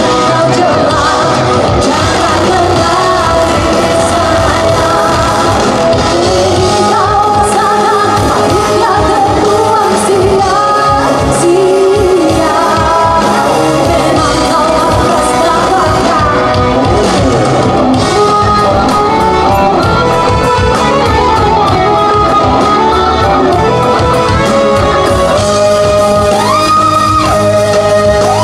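Live rock band: a woman singing into a microphone over amplified electric guitar and band accompaniment, loud and without a break.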